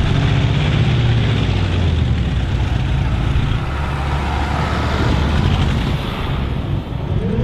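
Light modified pulling tractor's radial engine running loud and hard, with a dense exhaust rasp over a deep steady drone; the drone settles lower about halfway through.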